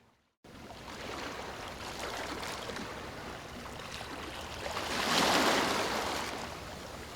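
Ocean surf: after a half-second gap, a steady wash of waves swells to a breaking wave about five seconds in, then eases back.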